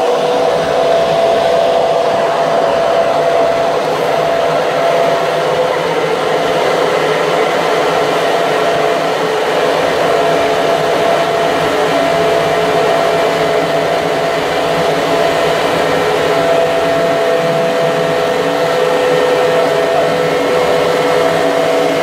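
A NutriBullet personal blender runs continuously, blending a smoothie, its motor giving a loud, steady whine.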